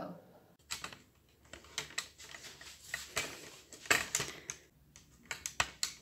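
Irregular clicks, taps and rustles of objects being handled during household tidying, loudest about four seconds in.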